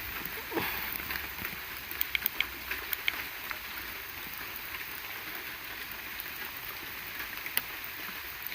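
Light rain pattering steadily as an even hiss, with scattered sharp drip ticks and a few louder knocks.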